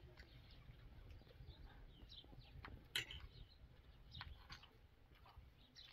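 Faint bird chirps with a few light clicks of forks on plates, the sharpest about three seconds in.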